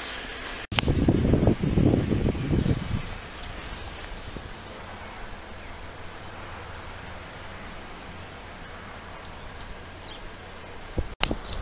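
A cricket chirping steadily, with short high-pitched chirps at about three a second. A burst of low rumbling noise on the microphone covers the first couple of seconds.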